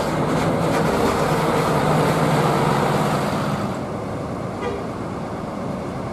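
Coach bus diesel engine running loudly as the bus drives past close by, then dropping after about three and a half seconds to a quieter, more distant engine hum.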